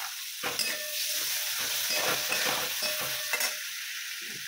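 Chopped tomatoes frying in mustard oil in a metal kadai with a steady sizzle, while a metal spatula scrapes and stirs against the pan in a run of strokes from about half a second in until near the end.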